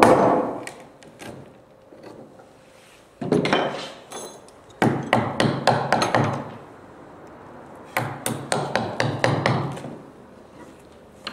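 Small hammer striking on the plank bottom of a wooden river boat: quick runs of sharp strikes, several a second, with pauses between runs.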